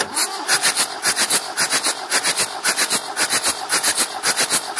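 Perkins 4.248 four-cylinder diesel of a Massey Ferguson 590 cranked on its starter without firing, a fast, uneven chugging that starts suddenly. This is a compression test on cylinder three, which builds to about 24 bar, a reading the owner judges okay.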